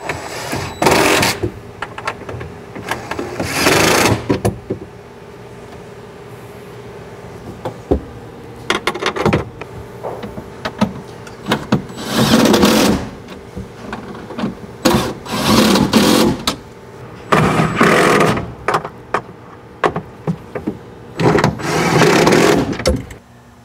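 DeWalt 20V MAX cordless impact driver hammering 1/4-20 bolts down in about six short bursts of a second or so each, seating the module's feet firmly on the plate. Faint clicks come between the bursts.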